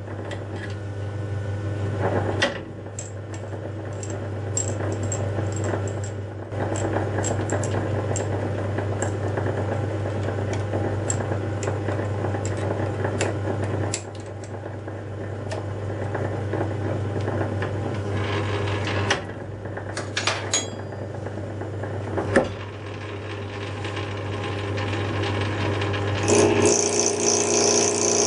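Metal lathe running with brass bar stock spinning in the chuck: a steady motor hum with scattered light ticks and a few sharp knocks. Near the end a cutting tool goes onto the brass, adding a high-pitched whine.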